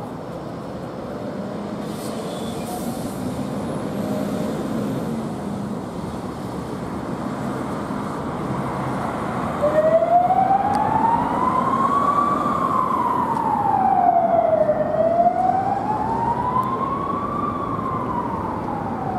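Fire truck pulling out, with engine and road noise. About halfway through its siren starts and sounds a slow wail, rising and falling twice.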